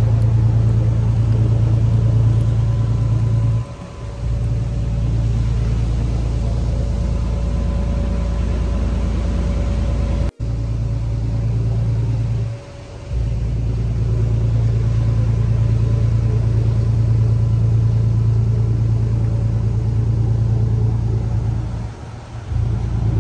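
A fishing boat's engine running steadily under way: a deep, even drone with the rush of water and wind over it. It dips briefly three times, about nine seconds apart.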